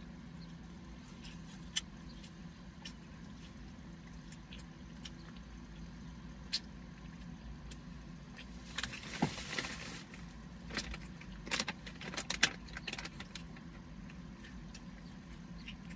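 Handling and eating sounds inside a car, over a steady low hum: a few sharp clicks, then from about nine seconds in a burst of rustling and jangling and a run of clicks that ends about thirteen seconds in.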